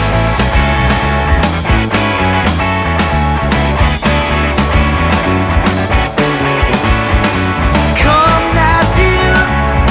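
Rock band playing: distorted electric guitars over bass and drums with a steady beat, a voice coming in near the end.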